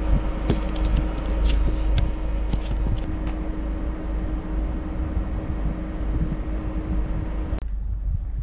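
Wind buffeting a small action-camera microphone, a heavy low rumble, with a few sharp clicks from the camera being handled in the first three seconds. A steady hum with hiss above it runs beneath and cuts off suddenly near the end.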